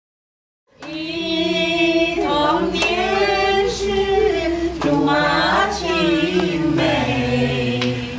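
A small group singing a song together in unison, with long held notes. It starts abruptly about a second in, after silence.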